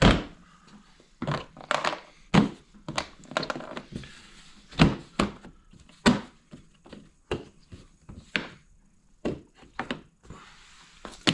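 A string of irregular knocks, taps and clunks, a dozen or so sharp hits at uneven spacing, as hands handle and fit parts on the snowmobile.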